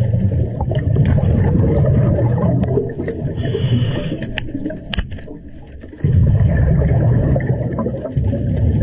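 Scuba diver breathing through a regulator, heard underwater: one short hiss of inhalation about three and a half seconds in, over a low rumble of exhaled bubbles and moving water that drops away for about a second near the middle and then returns.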